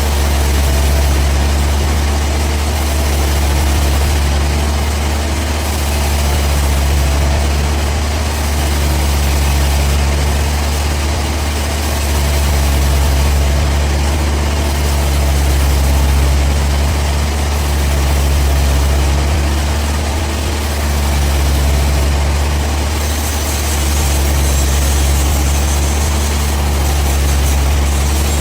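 Sawmill machinery running steadily: a loud low engine hum that swells and eases about every three seconds.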